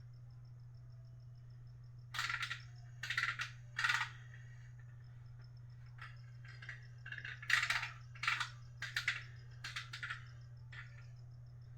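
Small hard plastic and metal printer parts clicking and clinking as they are handled, in a series of short bursts, over a steady low hum.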